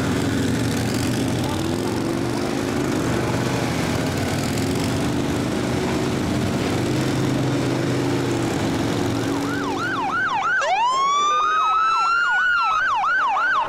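Police motorcycle engines running with a low rumble; about ten seconds in, police sirens start: a fast yelp sweeping up and down, overlapped by a long rising wail.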